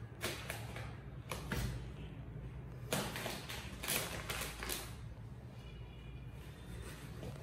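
Cats playing rough: paws tapping and scraping against a cabinet door and a laminate floor, a string of irregular knocks and scuffles that is busiest in the middle.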